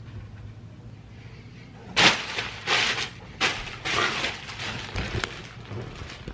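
Knocks and rustling of a handheld camera being picked up and moved, starting about two seconds in, over a low steady hum.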